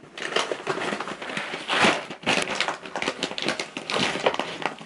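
Bags of dry cat food crinkling and rustling as they are handled and moved, a dense run of irregular crackles.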